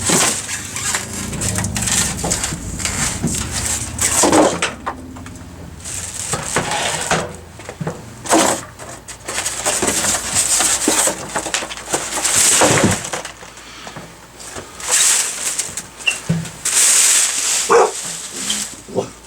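Packaging being handled and pulled away from a mini split outdoor condenser: irregular rustling, crinkling and scraping with occasional knocks.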